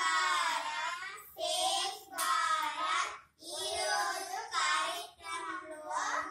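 Children's voices reciting short phrases, about five lines with brief pauses between them.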